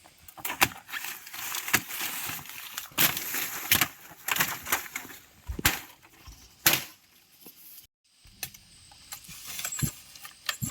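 Irregular sharp knocks and clicks with a rustling hiss between them; no saw is running. The sound cuts out completely for a moment about eight seconds in.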